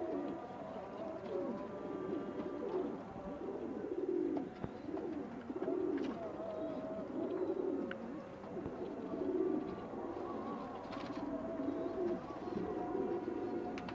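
Several domestic pigeons cooing, their low coos overlapping and repeating one after another.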